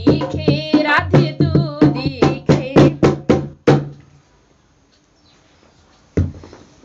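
Dholak played with quick, evenly spaced hand strokes under a woman's devotional singing, the song ending about four seconds in. After a short quiet, a single drum stroke near the end.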